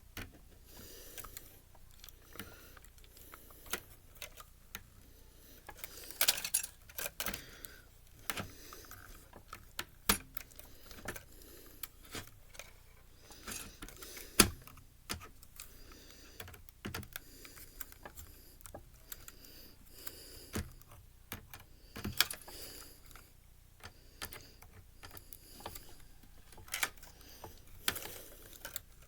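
Irregular light clicks, taps and rattles of a small screwdriver and loose plastic and metal parts being handled while a Blu-ray player is taken apart. A few louder knocks stand out, the sharpest about halfway through.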